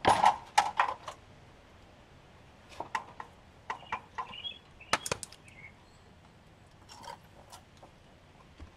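Dishwasher parts being pried and worked apart by hand: irregular sharp clicks and knocks of plastic and metal, a quick run of loud ones in the first second, then scattered quieter ones.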